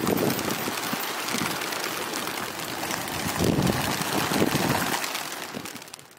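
A large flock of racing pigeons flying close overhead: a dense rushing flutter of many wingbeats with uneven surges. It fades out near the end.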